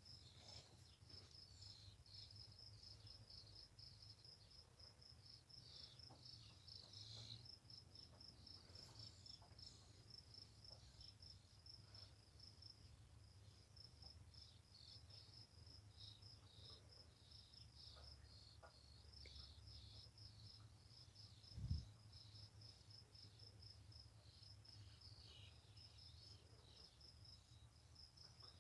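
Faint cricket chirping, a rapid, even, unbroken pulse, with soft irregular scratching from a rabbit digging in dirt and hay. A single low thump about three-quarters of the way through is the loudest sound.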